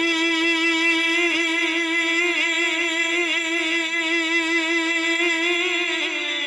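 A male singer holds one long sung note of a devotional dhamaal song, with a wavering vibrato; the pitch sags slightly near the end.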